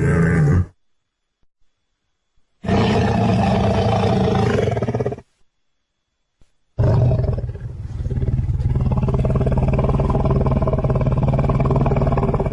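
Lion vocalising in low, pitched growls and roars, heard in three stretches that start and stop abruptly with dead silence between them. The last stretch is a long growl of about six seconds, held at a steady pitch.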